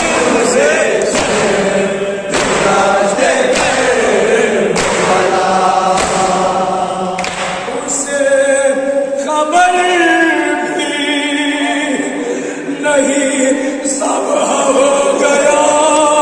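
Men reciting a Shia noha (mourning lament) with no instruments: lead voices sing the lines and a group of men chants along. Through the first half it is crossed by a beat of about one stroke a second, the chest-beating of matam.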